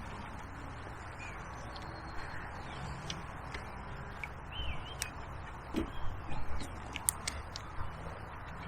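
Faint bird calls over a steady rushing background, with a cluster of small clicks and knocks from about five to seven seconds in.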